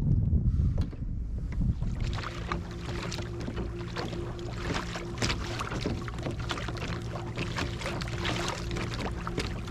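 Kayak under way on the water: from about two seconds in, a steady motor hum over water hissing and splashing along the hull, with wind rumble on the microphone before it.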